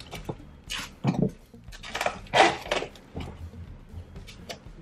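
Plastic cling wrap crinkling and rustling as it is stretched over a glass bowl and pressed down around the rim, in a few short uneven bursts with light taps.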